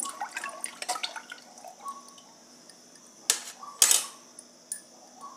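A steel spoon stirring spices into water in a pressure cooker: light sloshing and small knocks against the pot. About three and four seconds in come two louder clinks of steel on steel.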